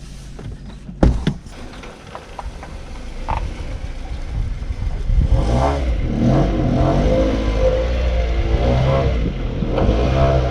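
Mitsubishi Lancer X engine revving up and down again and again under load as the car tries to climb onto a steep inspection ramp. A sharp knock about a second in.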